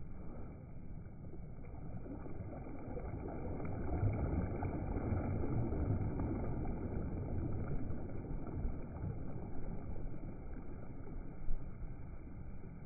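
Rushing wind and water noise from a windsurf board sailing, swelling for several seconds in the middle, with one short knock near the end.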